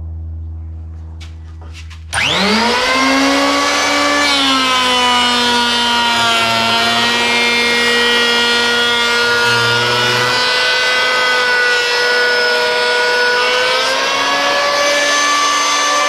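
Electric hand planer (an old Makita) switched on about two seconds in, whining up to speed within a second and then running steadily as it shaves a Huon pine board, its pitch sagging slightly at times under the cut. A low hum comes before it starts.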